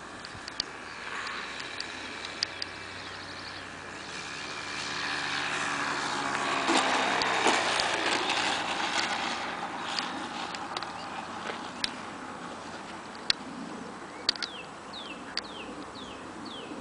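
Engine of a Sig Kadet LT-40 radio-control trainer growing louder as the plane passes low along the runway, loudest about seven seconds in, then fading away. A few sharp clicks and some quick falling chirps sound near the end.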